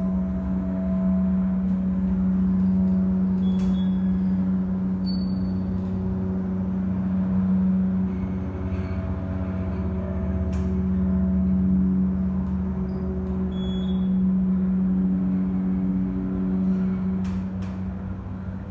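Montgomery KONE hydraulic elevator's dry-type pump motor running under load as the car rises, a loud steady hum, fading slightly near the end.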